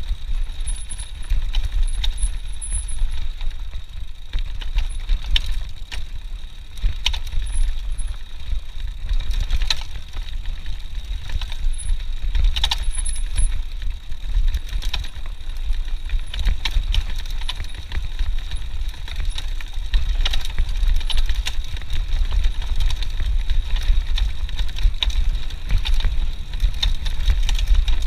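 Mountain bike ridden fast down a bumpy dirt trail: a steady low rumble of wind on the chest-mounted camera's microphone, under tyre noise and the bike's frequent irregular rattles and clacks over the bumps.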